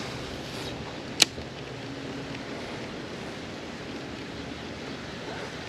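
Steady outdoor background hiss, broken by one sharp click about a second in.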